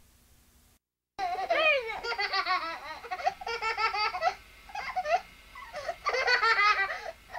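Young children laughing and giggling in repeated high-pitched bursts, starting about a second in after a brief silent dropout.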